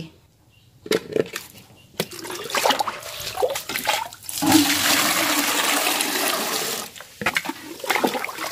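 A dipper knocks into a plastic bucket and scoops up liquid fertilizer, then pours it steadily into a watering can for a few seconds. Choppier splashing near the end as the dipper goes back into the bucket.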